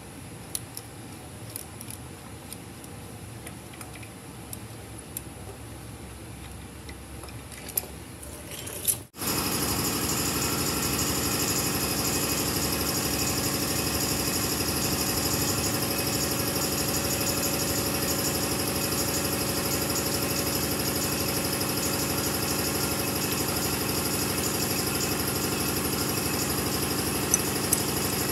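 Light clicks and clinks of small metal hand tools, then about nine seconds in, a steady mechanical hum from a running motor starts abruptly and carries on unchanged.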